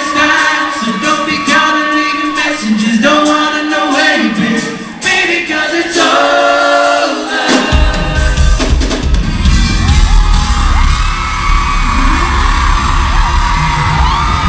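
Live pop band with a lead singer, heard from the audience. At first the vocals carry over a light backing; about halfway through the full band comes in with a heavy low end, and whoops and yells from the crowd are mixed in.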